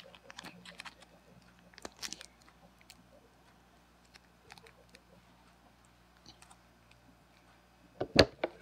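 Scattered faint clicks and rustles of hands handling things, with a louder crackling burst near the end.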